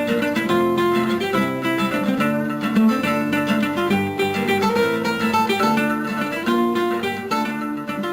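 Background music: acoustic guitar playing a plucked, flamenco-style tune.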